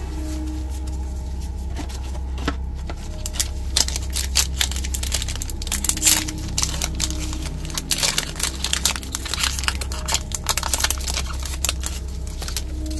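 A trading-card booster pack wrapper being torn open and crinkled by hand, with a run of sharp, crackly rips and rustles from about three seconds in until near the end.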